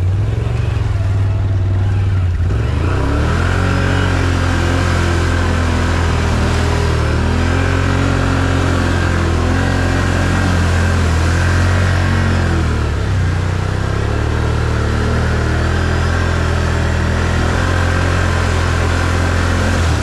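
Can-Am Outlander 1000 ATV's V-twin engine running steadily and loudly, revved up and down repeatedly for about ten seconds, dipping briefly, then pulling steadily again.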